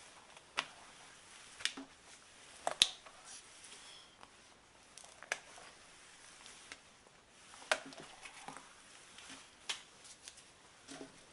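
A silicone baking mat being folded over snow-skin dough, pressed down by hand and peeled back. Scattered light clicks and taps with soft rubbing between them, the sharpest about three seconds in.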